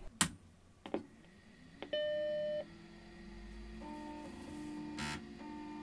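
Apple Macintosh SE being switched on: a click, then its startup chime, a single steady beep held just under a second. After the beep the machine settles into a steady hum with broken, on-off tones and a short click about five seconds in.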